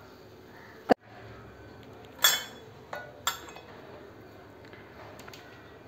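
A metal ladle clinking against the side of a pan of milk as the milk is stirred: a few short, separate clinks, the loudest a little over two seconds in. There is also one sharp click about a second in.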